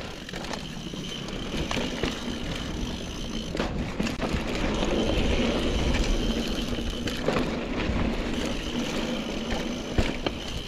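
Mountain bike descending a dirt trail: tyres rolling and the bike rattling, with a low steady rumble and a few sharp knocks over bumps.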